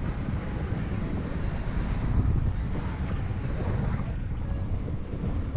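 Wind noise from the airflow of paraglider flight buffeting the microphone: a steady low rumble that swells and fades.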